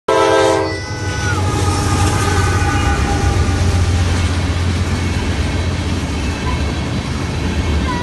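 Freight locomotive's air horn sounding a chord for under a second at the start, then cutting off, its last tone falling in pitch. After it, the steady low rumble of the freight cars rolling past over the crossing.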